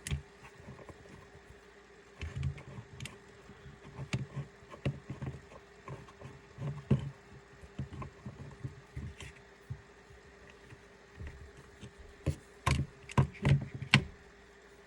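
Irregular light knocks and clicks of small tools against an airsoft rifle's plastic lower receiver as the mag release roll pin is worked out, with a quick run of louder knocks near the end. A faint steady hum lies underneath.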